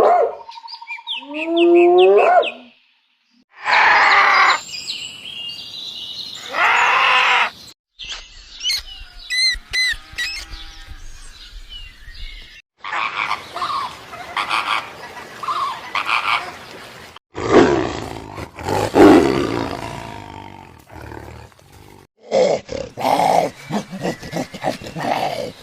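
A run of different animal calls, one short clip after another with abrupt cuts between them: pitched calls, harsher noisy calls and high thin chirping notes.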